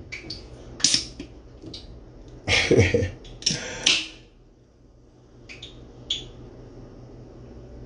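Fingers and fingernails clicking and scraping at the pull tab of an aluminium drink can in short irregular bursts, loudest between about two and a half and four seconds in; the tab is not yet lifting.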